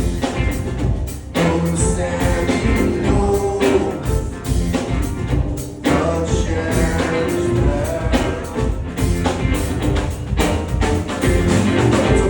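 Rock band playing live, with drum kit hits keeping a steady beat under bass and pitched instruments.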